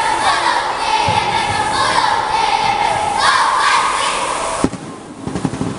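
Many children's voices shouting a cheer together, loud and continuous, cutting off abruptly about four and a half seconds in with a sharp knock, followed by a few scattered thumps.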